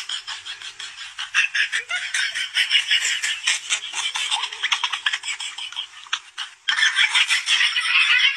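A person giggling and laughing in quick, pulsing bursts that sound thin, with no low end, and break off briefly about two-thirds of the way through.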